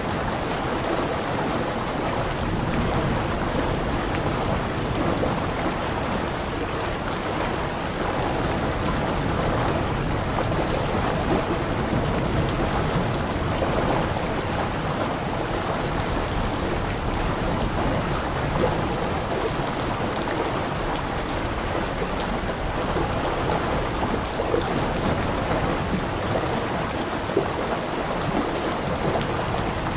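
Steady rain falling: an even, dense hiss, with a few slightly louder drop hits standing out now and then.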